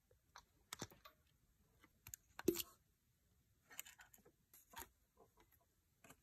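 Faint, scattered clicks and clinks of hand tools and small metal valve-train parts being handled over an open cylinder head, the sharpest one about two and a half seconds in.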